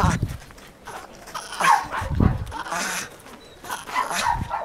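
Jagdterrier barking in short bursts as it bites and hangs from a fur lure, with a few low thuds.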